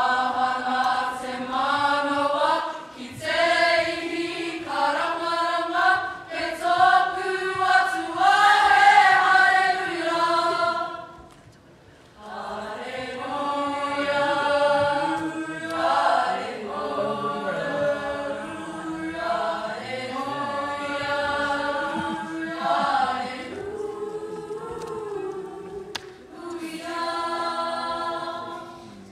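A choir of student voices singing together in harmony. The singing breaks off for about a second near the middle, then resumes, and ends just before the close.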